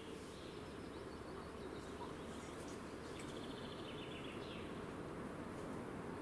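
Quiet woodland ambience: a small bird gives short, high trilled chirps twice, over a low steady rumble that slowly grows louder.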